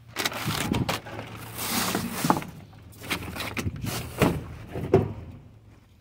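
Debris being trodden on and shifted inside a steel dumpster: irregular crunching, scraping and knocking of drywall, foam and cardboard, with a sharp knock about five seconds in, over a low steady hum.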